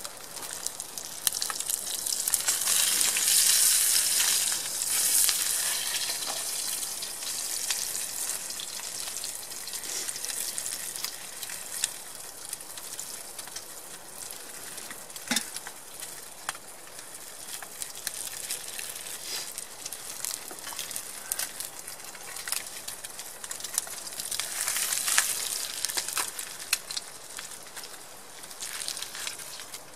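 Slices of meat sizzling in a frying pan over a campfire: a steady hiss with many small crackles and pops, louder a couple of seconds in and again near the end.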